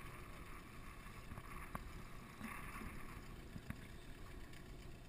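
Wind rumbling on the microphone and small waves lapping against a small boat's hull, with a short rush of splashing hiss about two and a half seconds in and a few faint clicks.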